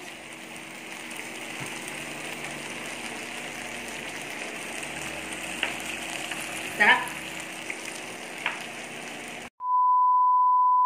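Meat sizzling on a tabletop samgyupsal grill, a steady even hiss, with a brief voice about two-thirds of the way through. Near the end the sound cuts out and a loud steady beep at one pitch begins.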